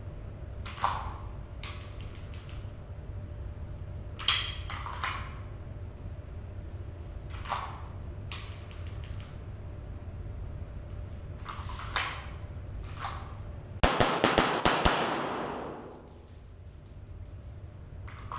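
SIG P320 pistol fired in a fast string of about five shots within a second, echoing off the walls of an indoor range. Scattered single and paired sharp cracks come before the string.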